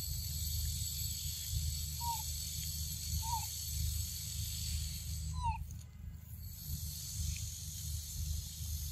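Steady high-pitched insect drone that breaks off for about half a second a little after the middle and then starts again, over a low rumble. A bird gives a short, slightly falling note a few times.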